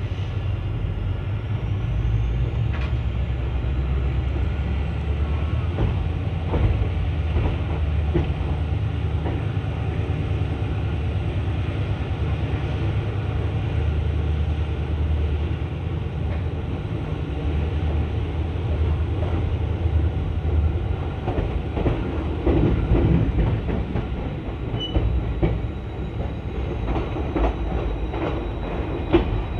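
ICF passenger coach's wheels running on the track as the train pulls out of the station, heard from inside the coach: a steady low rumble with clacks over rail joints and points, which come more often in the last third.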